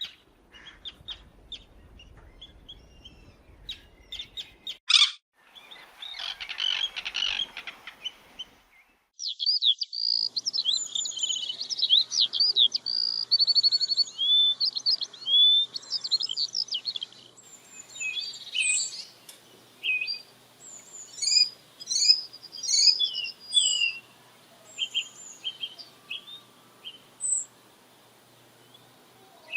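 Several bird recordings in a row: faint chirps, a sharp snap about five seconds in, then a rustling burst, then a stretch of dense, fast trilled songbird song. The song gives way to scattered high chirps and short calls from several birds.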